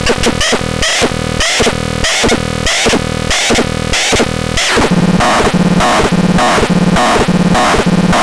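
WAXISON B 603 electronic sound unit playing a loud, harsh electronic sound pattern that pulses rapidly, changing about five seconds in to a pattern with a low tone beating about twice a second.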